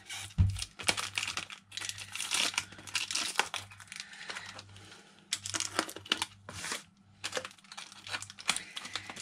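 Black plastic heat-shrink wrap on a battery pack crinkling and tearing as it is slit with a utility knife and pulled open: irregular crackling with a few short pauses.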